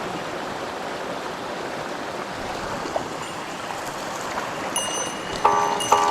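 Steady rushing of a mountain stream. Near the end, plucked-string background music comes in over it.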